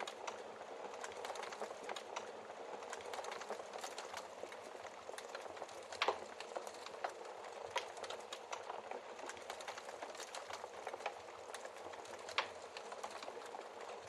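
Wood fire crackling steadily in a fireplace, with many small snaps and two louder pops about six and twelve seconds in.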